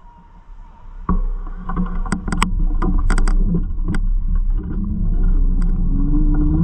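Bicycle riding on a city street: a low rumble of tyres and ride noise that jumps up about a second in, sharp rattling clicks a couple of seconds in, and a hum rising in pitch near the end.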